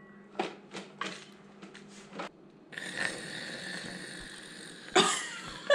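Handling of a seasoned-laver package and tableware on a table: a few short clicks and crinkles, then a steady hiss from about halfway through and one louder knock near the end.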